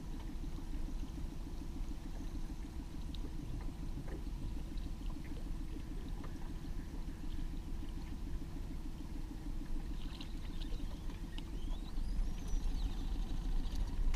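Small boat's outboard motor running steadily at trolling speed, a low, fast, even pulsing. A few faint high rising-and-falling sounds come in near the end.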